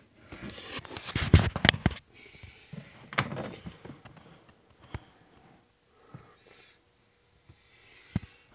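Close handling noise around a plastic reptile tub: rustling and scraping with a few sharp knocks and clicks. It is loudest in the first two seconds, with a short rustle about three seconds in and scattered clicks after that.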